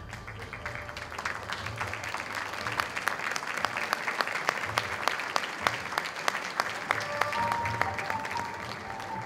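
Audience applauding, many hands clapping densely, over background music; a melody in the music becomes clearer near the end.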